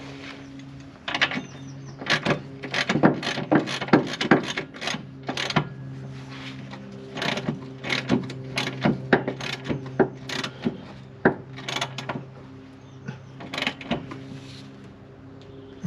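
Socket ratchet clicking in quick runs of strokes as bolts are done up tight, over a steady low hum.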